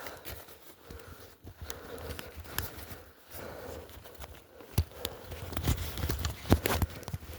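Irregular footsteps and knocks with some rustling, growing louder about halfway through, with the sharpest knocks near the end.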